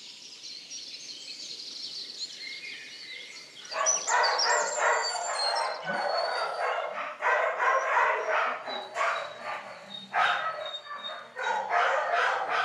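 Faint bird chirping, then from about four seconds in dogs barking over and over in loud bouts that stop and start again.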